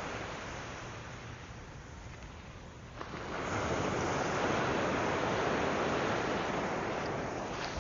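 Ocean surf washing on a beach: a steady rush of water that swells suddenly about three seconds in.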